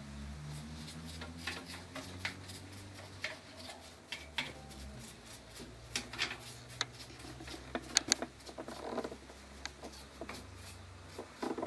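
Metal screwdriver clicking and scraping against the metal of an old Elgin sewing machine head as it is worked into a screw on a seized, dirt-clogged mechanism; irregular sharp clicks, loudest about eight seconds in. A steady low hum runs underneath.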